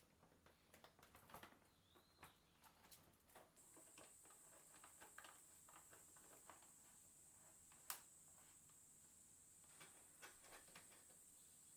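Near silence with faint scattered clicks and taps, and a steady high-pitched whine that comes in about three and a half seconds in; one sharper click near the middle.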